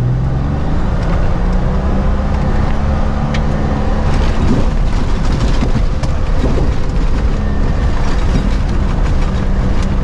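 A 4x4's engine running as it drives on sand, rising in pitch over the first second or so and then holding steady under a constant rumble.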